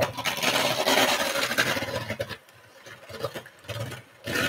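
Stand mixer running, beating gingerbread dough in the bowl. It runs loudly for about two seconds, drops away, and starts up again near the end.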